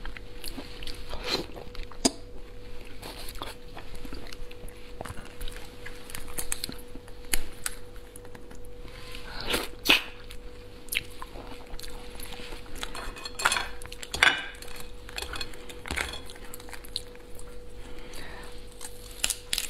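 Close-up eating sounds of raw lobster being broken apart and eaten: shell cracking and crackling, sucking and chewing, with a few sharper cracks, the loudest about ten and fourteen seconds in. A faint steady hum runs underneath.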